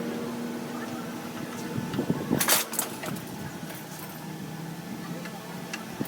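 A motor vehicle engine running steadily, with one sharp knock about two and a half seconds in.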